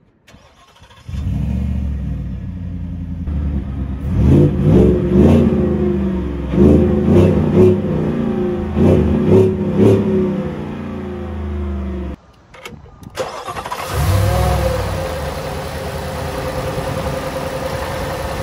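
Whipple-supercharged 5.0-litre V8 of a 2021 Shelby F-150 starting about a second in and idling, then revved in a string of about eight quick blips, kept to 4,000 rpm because the engine is still in break-in. It is loud through the exhaust. After a short break it runs steadily again, heard from the open engine bay.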